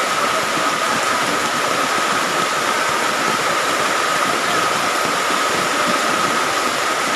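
Heavy downpour: a loud, steady, even hiss of rain with no letup.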